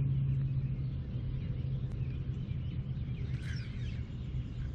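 Quiet open-air ambience on the water: a steady low hum over a low rumble, with faint bird chirps about three and a half seconds in.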